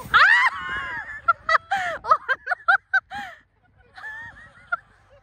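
Goose honking: one loud call, then a quick run of about ten short honks, and a few fainter honks about four seconds in.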